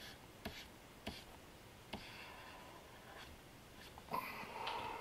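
Faint taps and scratching of a stylus on a Wacom Cintiq pen display: a handful of separate taps, light scratchy strokes about two seconds in, and a louder rustle near the end.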